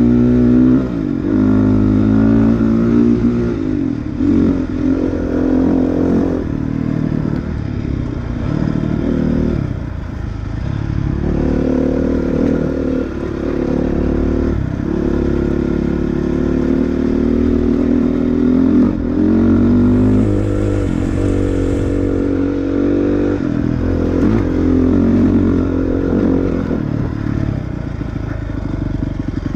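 Dirt bike engine running hard on a trail ride, its revs climbing and dropping again and again as the throttle is worked.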